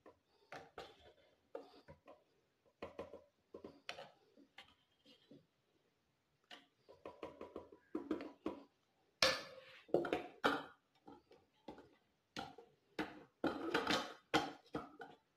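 Wooden spoon stirring and scraping dry bread crumbs in a plastic food processor bowl, with irregular soft scrapes and knocks. There are louder bursts of handling about nine to ten seconds in and again near the end.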